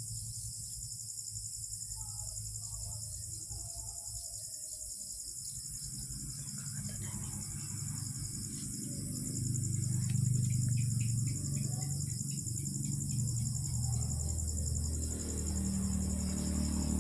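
Crickets chirping in a steady, continuous high chorus, with a low hum underneath that gets louder about halfway through.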